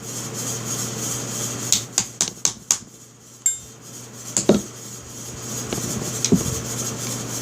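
Small metal-on-metal clicks and taps as a finish nail pushes the trigger-group pin out of a Stevens 320 pump shotgun: a quick run of sharp clicks about two seconds in, a short metallic ring a second later, then a few scattered taps.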